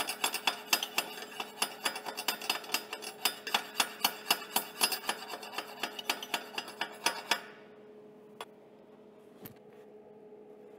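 Chipping hammer tapping steel square tubing in quick, light, ringing strikes, about four a second, to knock off weld spatter. The tapping stops about seven seconds in, leaving a low steady hum and two small clicks.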